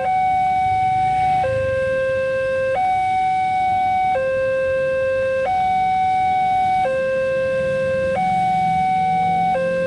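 Railway level-crossing warning alarm sounding a loud two-tone hi-lo signal, a higher and a lower tone alternating evenly about every second and a third, warning that the crossing is closed for an approaching train.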